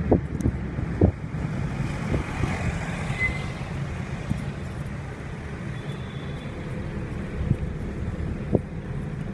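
Steady low rumble of road and engine noise heard from inside a moving vehicle in city traffic, with a few sharp knocks in the first second and a brief high chirp about three seconds in.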